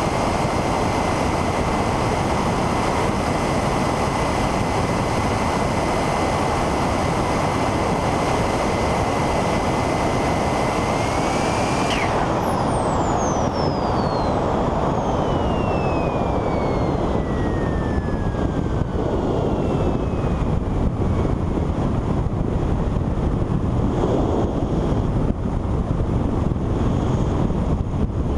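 Model jet's K-80 turbine whining at a steady high pitch under a loud rush of airflow over the onboard microphone. About twelve seconds in the whine rises briefly, then falls away in a long, slow downward glide as the turbine flames out and spools down, leaving only the wind rush as the jet glides in. The pilots put the flameout, which came inverted, down to air in the UAT fuel trap.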